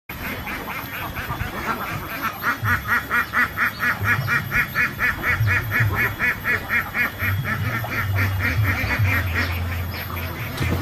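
A duck quacking in a long, fast, even series of short quacks, several a second, over a low rumble.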